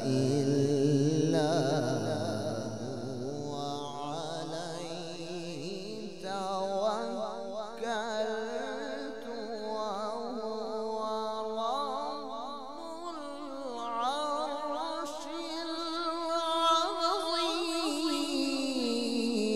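A male qari's voice reciting the Quran in a slow, melodic style, drawing out long held notes with wavering, ornamented pitch.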